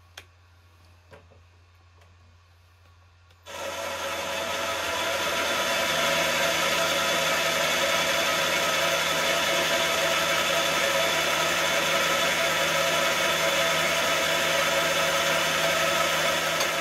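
Milling machine spindle starting suddenly about three and a half seconds in, after a quiet start with a couple of faint clicks. It builds up over a couple of seconds and then runs steadily with a mix of steady whining tones, turning a valve seat cutter in an inlet valve seat of a cast-iron classic Mini cylinder head.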